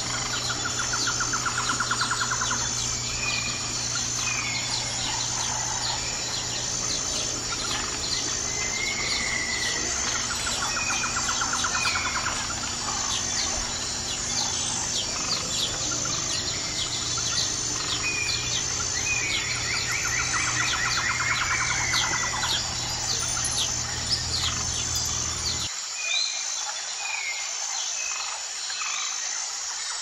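Wild birds chirping and calling, with a few rapid trills, over a steady high insect drone that pulses at an even rhythm. A low steady hum under it cuts off suddenly near the end.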